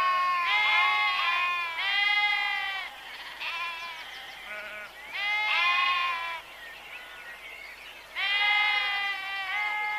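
Several sheep bleating, their calls overlapping at different pitches. The calls come in bouts with short lulls between them: loud at the start, again a little past the middle, and near the end.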